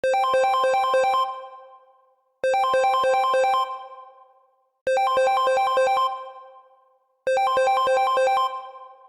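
Synthesized mobile phone ringtone: a short burst of quick repeated electronic notes that fades out, then about a second of silence before it starts again. It plays four times.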